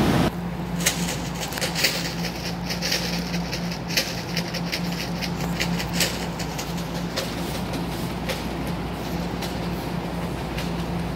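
Rail station platform ambience: a steady low hum with scattered light clicks and taps.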